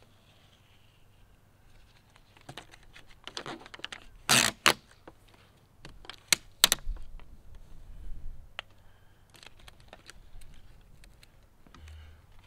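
Vinyl wrap film and its paper backing being handled as the backing is peeled off and the film pressed on by hand: scattered crinkles, crackles and sharp clicks, with the loudest rustle about four seconds in and two sharp clicks a couple of seconds later.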